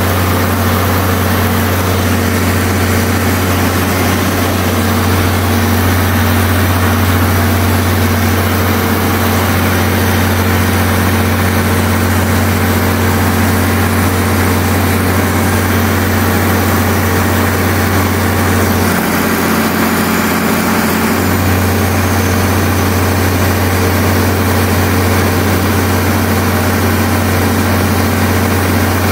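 Allis-Chalmers 670 T 426-cubic-inch turbocharged diesel driving a 100 kW Onan generator, running steadily as it warms up after a cold start. The engine had been under water, and its oil still holds water.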